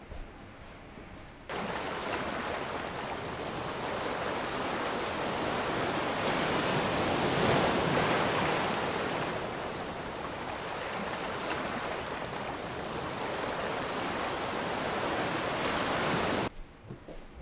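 Rushing sea wind and waves, starting suddenly about a second and a half in, swelling in the middle and cutting off sharply near the end.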